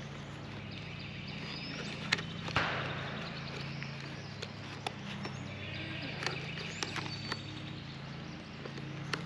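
Light clicks and taps of hands fitting plastic parts and speaker wire into a motorcycle helmet's liner, over a steady low hum and outdoor background, with a couple of short rising whistles.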